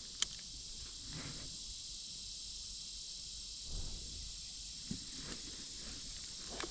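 Steady high-pitched chorus of insects, with one sharp click just after the start and a few faint soft knocks.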